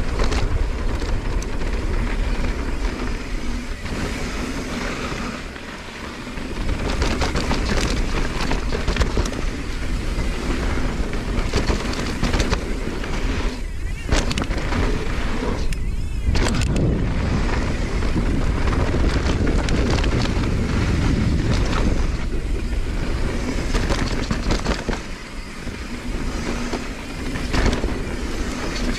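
Mountain bike rolling down a dirt trail: tyres crunching over dirt and rocks and the bike rattling, with wind rushing over the camera microphone. The noise eases briefly twice, about six seconds in and again near the end.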